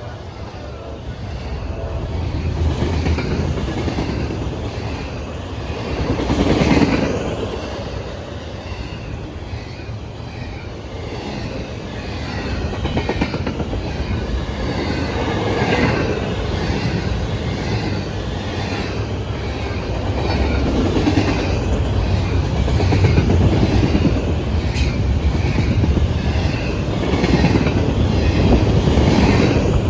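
Fast-moving double-stack intermodal freight train rolling past, a steady loud rumble of wheels with a rhythmic clickety-clack as the cars go by, swelling and easing as the cars pass.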